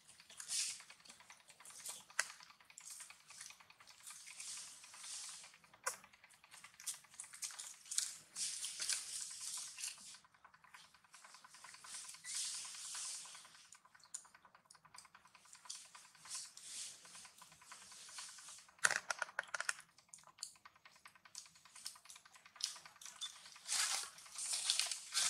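Dry leaves rustling and crackling in quick, irregular clicks as baby macaques move over and handle them, with a sharper crack about three quarters of the way through.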